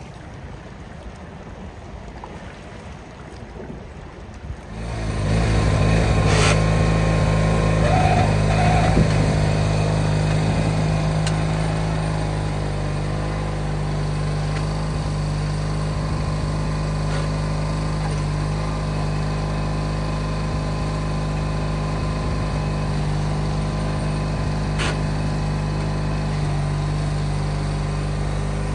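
Garden tractor engine running steadily under load while pulling a single-bottom plow through turf. It cuts in suddenly about five seconds in, after a few seconds of soft background noise.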